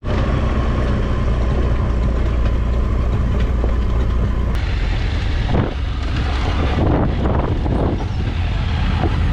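Motorcycle engine running while riding, under a steady rush of wind noise. The steady engine tone breaks off suddenly about halfway through and gives way to rougher, uneven rumble.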